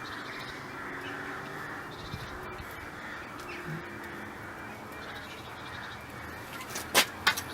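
Quiet hands-on work on a bicycle's rear drum-brake adjuster over a steady background hiss, ending in two sharp metallic clicks about seven seconds in as the brake linkage is worked loose.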